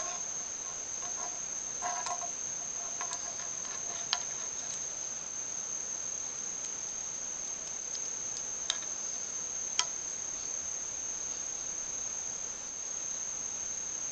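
A steady, high-pitched insect trill, with a few sharp clinks of a metal spoon knocked against a stone bench top.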